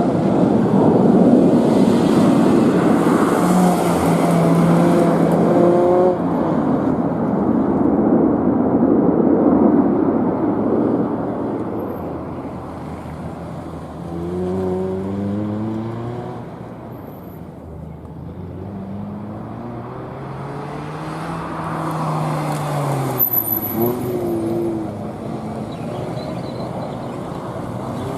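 A car being driven hard through a gymkhana course, its engine revving up and down through repeated accelerations and lifts, with loud tyre and engine noise in the first ten seconds. About halfway through the pitch climbs in quick steps, then swells in one long rise and falls away.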